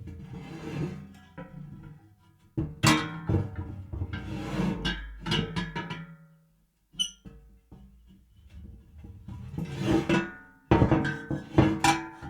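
Metal pipes falling onto a hard floor, each drop a clanging clatter of quick bouncing strikes with metallic ringing. There are several separate drops with short gaps between them, the busiest about three seconds in and again near the end.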